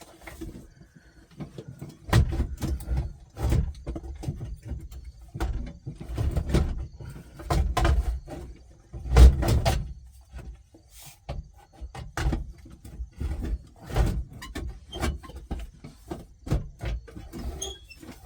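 Irregular clicks, knocks and low thumps of hands handling a car radio and its parts.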